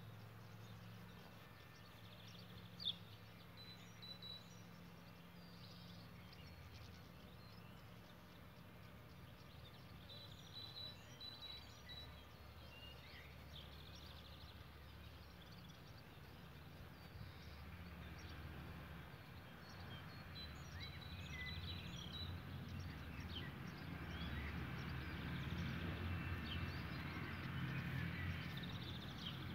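Faint outdoor ambience: scattered small bird chirps and calls over a low steady rumble that grows louder over the last several seconds.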